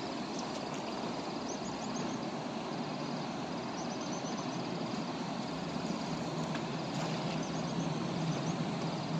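Steady rushing of river water, with faint high chirps now and then.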